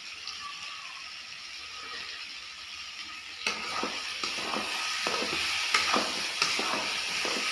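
Chicken and vegetables in masala sizzling in a kadai on a gas flame. About three and a half seconds in, a spatula starts scraping and stirring through the pan in repeated strokes, and the sizzle grows louder.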